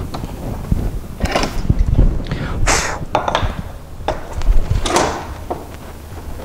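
Metal F-clamps and pine boards being handled on a workbench: several short scrapes, knocks and rattles over a steady low rumble.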